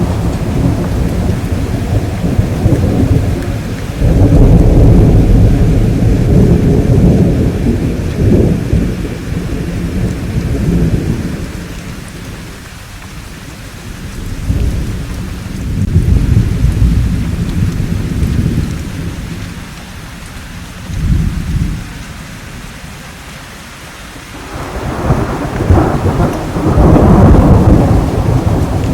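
Thunderstorm: rolling thunder in repeated long, low swells over steady rain, loudest about four to eight seconds in and again near the end. Between the rumbles there are lulls of a few seconds where only the rain hiss remains.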